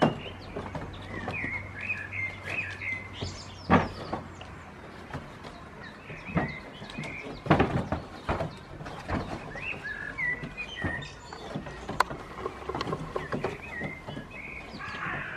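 Two goat kids sparring on a wooden bench: sharp knocks and clatter at irregular intervals, a few of them loud. Small birds chirp in the background.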